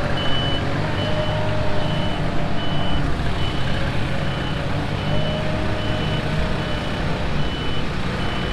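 Schaffer 2428 mini articulated loader's engine running as the machine backs up, with a reversing alarm beeping steadily at one high pitch, a little more than once a second.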